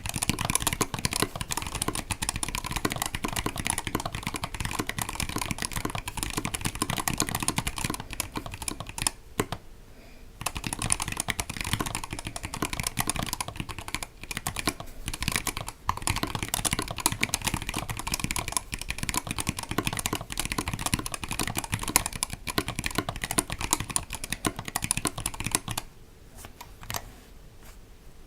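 Fast typing on a mechanical keyboard with stock, unlubricated KBDFans T1 tactile switches under GMK keycaps: dense key clacks, with a brief pause about ten seconds in and the typing dying away near the end.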